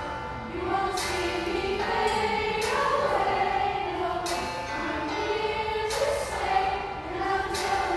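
A small youth choir singing, holding notes of about a second each that move from pitch to pitch.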